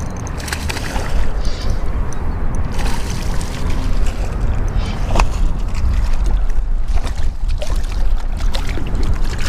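Wind rumbling on the body-worn microphone, with scattered splashes as a hooked smallmouth bass thrashes in shallow water at the bank.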